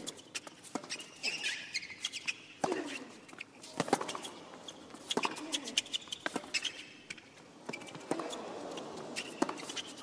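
Tennis rally on a hard court: the ball is struck back and forth with sharp racket pops roughly every second or so, and between the hits the players' shoes squeak against the court as they run and change direction.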